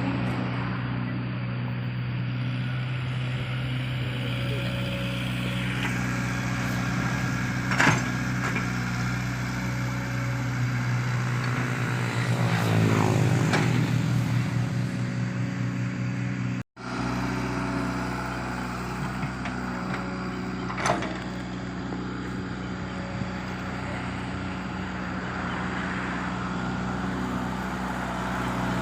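Komatsu PC75UU excavator's diesel engine running steadily while it works. The engine swells louder under load about 12 to 14 seconds in. There are two sharp knocks, about 8 and 21 seconds in.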